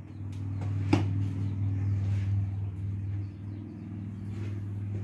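A steady low machine hum, with a single sharp knock about a second in.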